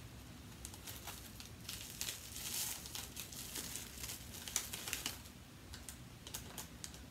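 Small clear plastic jewelry bag crinkling as it is handled and opened, with scattered light clicks; the crinkling is densest about two to three seconds in.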